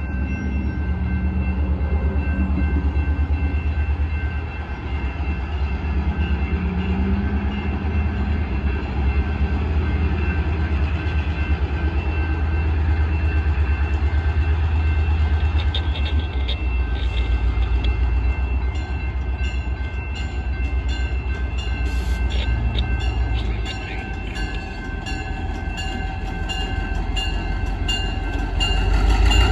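Diesel locomotive engine rumbling at the head of a vintage passenger train as it approaches, growing louder near the end. A rapid, regular ringing joins in about two-thirds of the way through.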